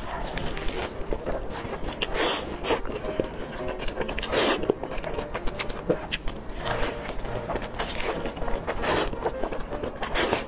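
Close-up eating sounds of a lettuce wrap filled with braised pork belly being bitten and chewed: crisp lettuce crunching and crackling with wet mouth sounds, and several louder crunches spread through.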